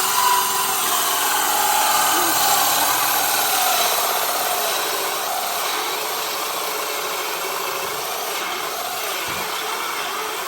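Cordless drill running continuously, boring a hole in wood, its level and pitch slowly sagging: the battery is running low.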